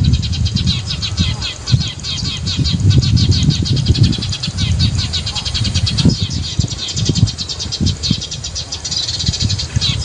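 Small songbirds chirping rapidly and without a break, a lure call for trapping munias or sparrows, over a low, uneven rumble.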